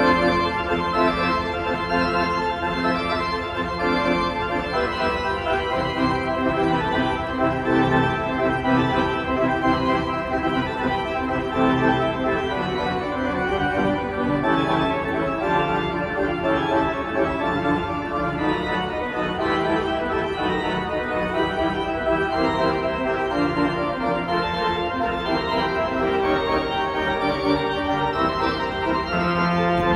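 Church pipe organ being played: a full texture of many notes, some held and some moving, at an even loudness.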